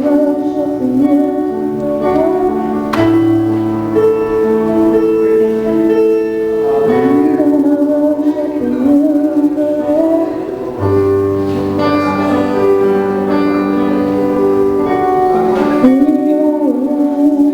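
Worship music: a voice singing a slow, wavering melody over long held keyboard chords.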